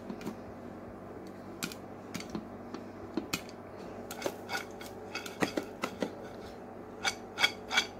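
Popcorn finishing in a lidded saucepan on the stove: scattered sharp pops and clicks, growing denser and clattering in the second half as the pan is shaken and the popcorn and lid rattle. A low steady hum runs underneath.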